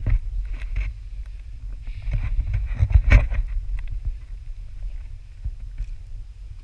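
Wind buffeting a GoPro microphone as a steady low rumble, with scuffs and knocks from footsteps on rock and handling of the selfie stick, the loudest about three seconds in.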